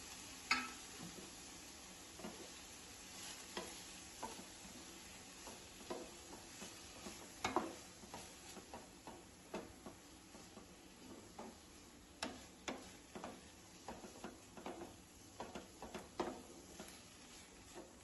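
Wooden spatula stirring and turning chopped mustard greens (laai saag) in a metal kadai, with irregular taps and scrapes against the pan over a faint sizzle.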